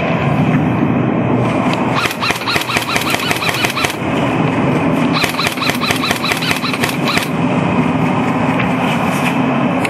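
Airsoft gun firing on full auto: two bursts of rapid, evenly spaced shots, each about two seconds long, the second starting about a second after the first ends. A steady background noise runs underneath.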